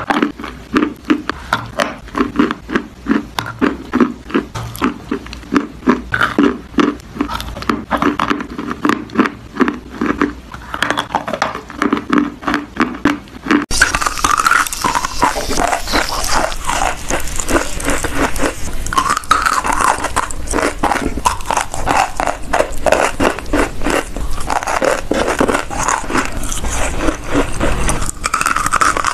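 Clay being bitten and chewed close to the microphone, a dense run of crisp crunches. About 14 s in it changes to brighter, harsher crunching of grey clay pieces with more hiss.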